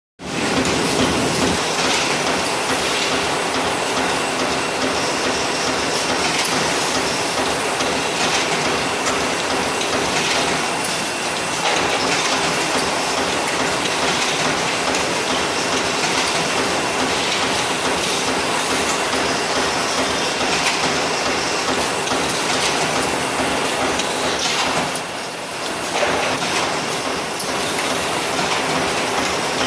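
Automated refrigerator-bag making machine running, a steady loud mechanical clatter with a repeating rhythm. Briefly quieter about five seconds before the end.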